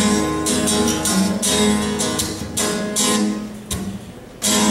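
Acoustic guitar strummed in a steady rhythm, with no voice over it. Near the end the strumming breaks off for about half a second, then comes back in.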